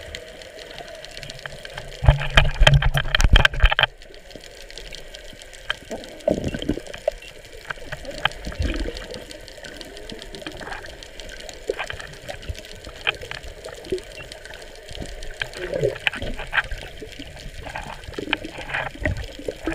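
Underwater sound through a submerged camera: water movement with scattered sharp clicks and pops. A loud rush of noise with a low hum from about two to four seconds in.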